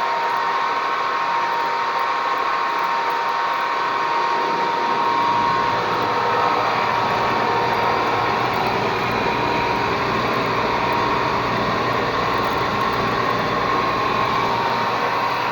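A power tool running steadily, with a constant whine and a low rumble that joins about five seconds in.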